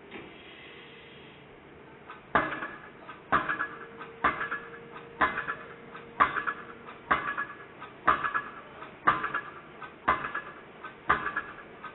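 Excavator-mounted piling hammer driving a steel tube pile into the ground. After a couple of seconds of steady hum, metallic blows start and repeat about once a second, each ringing briefly.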